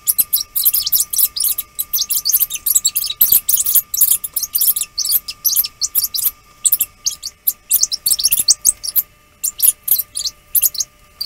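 A child's voice reading aloud, played fast-forwarded so that it comes out as rapid, squeaky, chipmunk-like chatter with short pauses.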